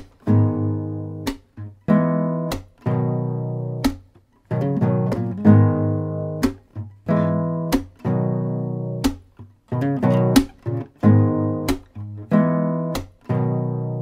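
Instrumental music of strummed acoustic guitar chords, each ringing out and fading, with short breaks between phrases.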